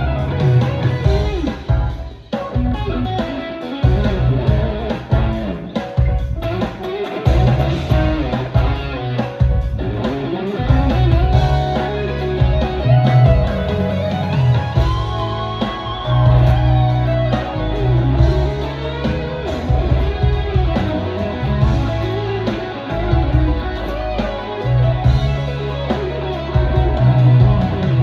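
Yamaha Pacifica Standard Plus electric guitar played through a Mooer GE300 amp-modelling processor: melodic lead lines with bent notes, over a low bass line.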